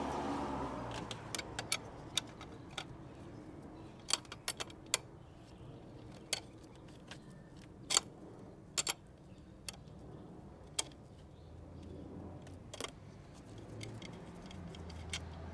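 Light metallic clicks and clinks at irregular intervals, made by hand tools and small engine parts being handled during work in the engine bay.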